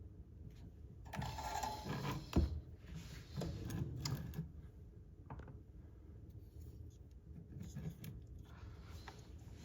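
Small parts and tools being handled on a workbench: rustling and scraping, with one sharp click about two and a half seconds in and lighter handling near the end.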